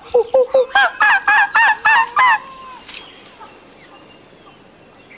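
Chimpanzee calling: a quick run of about ten hoots that climb in pitch and speed up over about two and a half seconds, then stop.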